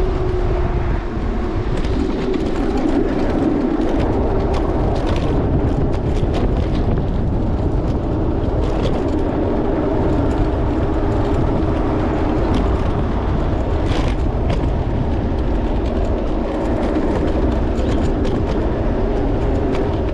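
Electric scooter riding along city streets, heard from its handlebars: a loud, steady rumble of road and wind with a hum running through it and scattered rattling clicks.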